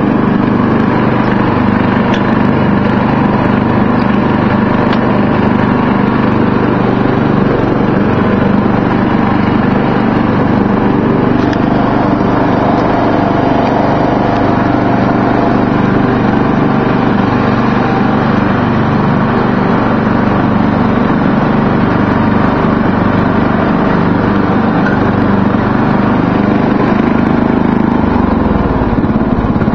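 Murray riding lawn mower engine running steadily while mowing grass.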